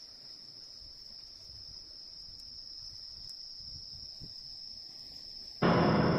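Steady high-pitched chirring of crickets or other night insects. Near the end a sudden, much louder sound cuts in and begins to fade.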